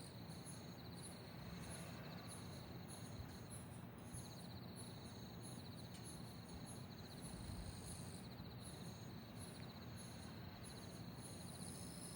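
Crickets trilling steadily in a faint chorus: one continuous pulsing trill, with shorter, higher chirps repeating about twice a second.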